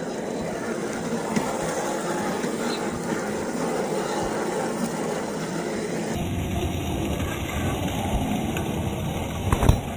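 1:10-scale RC rock crawler with a brushed electric motor driving over rough ground: the motor and drivetrain run steadily under the tyres' rolling over dirt and rock. A sharp knock near the end.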